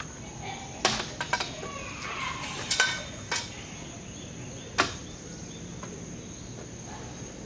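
Several sharp clicks and knocks of the awning's metal telescoping leg and frame being stood up and set, most of them in the first five seconds. Under them is a steady high chirring of insects.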